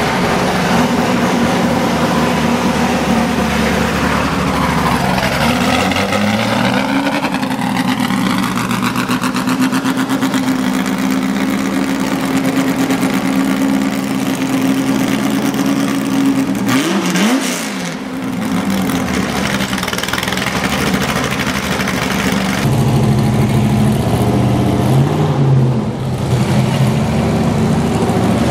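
Ford GT40's V8 engine idling, with a rev that rises and falls a few seconds in. After a break, a second V8, a C3 Corvette's, idles and pulls away near the end.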